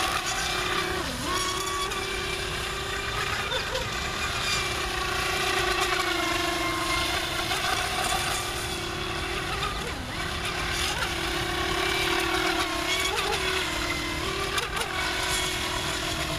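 Small radio-controlled speedboat's electric motor running on a 3S LiPo pack: a steady high whine that dips briefly in pitch several times.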